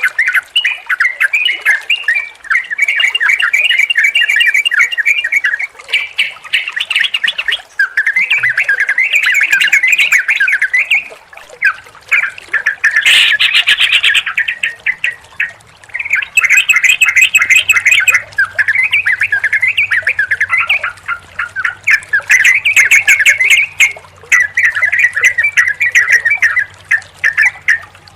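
Yellow-vented bulbuls (trucukan) singing: bubbly, chattering phrases in bouts of a few seconds with short pauses, and one harsher call about halfway through.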